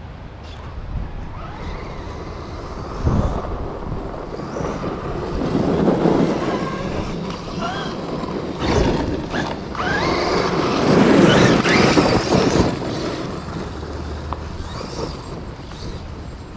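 Arrma Outcast 8S EXB electric RC truck driving over rough, rocky ground: its brushless motor whines up and down with the throttle, over crunching tyres and sharp knocks as the suspension soaks up the rocks. It is loudest a little past the middle.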